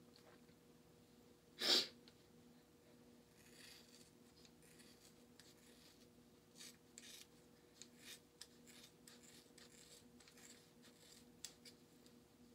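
Scissors cutting through a thick dreadlock: faint, scattered crunching snips, several of them from about six seconds on, over a steady low hum. About two seconds in there is one loud, short burst of breathy noise.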